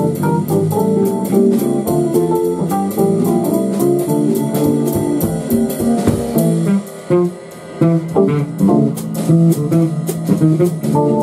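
Small jazz band playing live: electric keyboard and drum kit with cymbal strokes, and a plucked string instrument carrying a line. The sound drops briefly about seven seconds in, then the band carries on.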